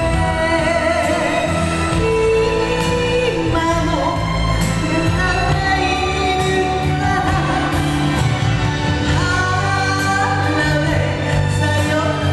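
A woman singing a Japanese popular song into a handheld microphone over an instrumental backing, her held notes wavering in pitch.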